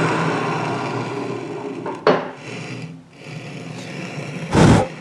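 Colchester lathe running on a threading pass, its steady hum fading over the first few seconds as it winds down. A sharp click comes about two seconds in and a louder thump near the end.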